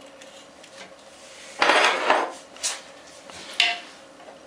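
A stuck porcelain toilet bowl being worked loose from the tile floor: a harsh scrape of hard material on hard material about a second and a half in, then two sharp clinks, the second with a brief ring.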